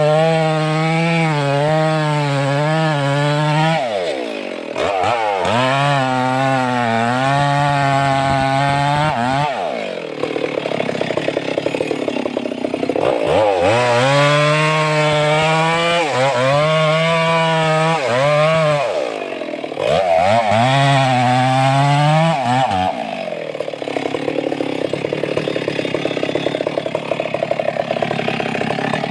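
Stihl 382 two-stroke chainsaw running at high revs. Its pitch dips and climbs back about five times, and in the longer rough stretches, around a third of the way in and over the last few seconds, it runs under load, cutting wood.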